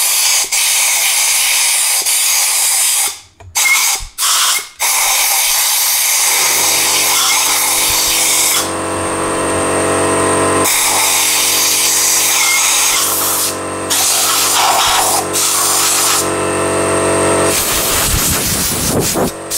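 Compressed-air blow gun hissing in long blasts into the bolt holes and cylinders of an aluminium engine block, blowing out the aluminium chips. It stops and starts in a few short bursts about three to five seconds in, and a steady low hum runs under the hiss from about six seconds until near the end.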